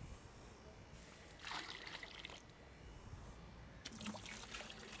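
Liquid trickling into a plastic bucket in two short spells, about a second and a half in and again near the end, as concrete bonding adhesive is diluted with water.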